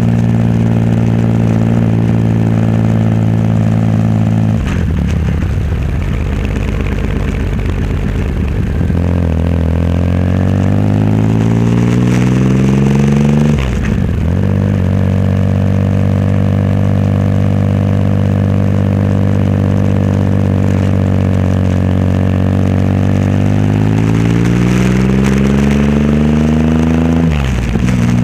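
Triumph Rocket 3 Roadster's 2.3-litre inline-three running through a custom exhaust while riding. The engine note drops sharply at gear changes about 5 and 14 seconds in and just before the end, and climbs as the bike accelerates between them, with a stretch of steady cruising in the middle.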